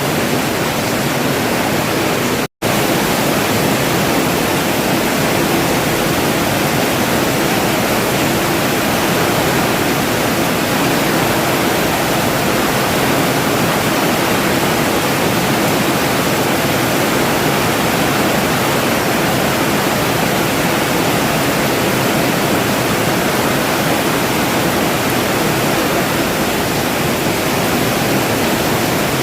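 Rain falling steadily and densely, a continuous even hiss of drops. The sound cuts out for a split second about two and a half seconds in, then carries on unchanged.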